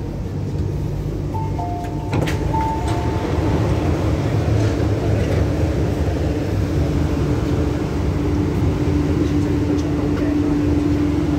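MTR Kwun Tong Line electric train running along the platform: steady rumble with a steady motor tone that strengthens in the second half. A two-tone chime sounds about a second and a half in, and a sharp clunk comes about two seconds in, after which the rumble grows louder.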